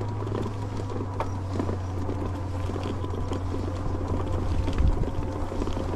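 Aniioki A8 Pro Max e-bike under pedal assist on a grass trail: the electric hub motor gives a steady hum and a thin whine, with scattered clicks and rattles from the fat tyres and frame over the bumpy ground. There is a brief low rumble about five seconds in.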